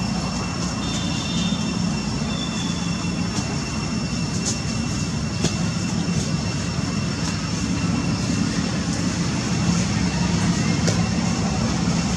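A steady machine drone with a thin, high steady whine over it and a few faint clicks.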